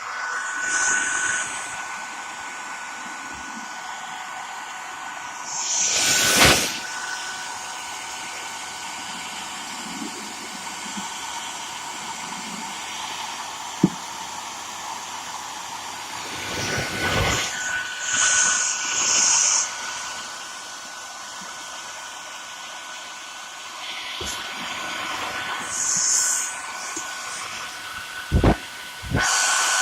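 Hair dryer blowing hot air steadily, heating a motorcycle headlamp housing to soften its lens sealant. The airflow hiss with a thin whine swells louder several times, and a few sharp knocks come in between.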